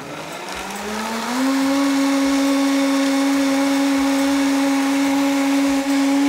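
Sencor countertop blender starting up on its soup program. Its motor whine rises in pitch over the first second or so, then runs steadily at full speed, puréeing almond milk and vegetables into a creamy soup.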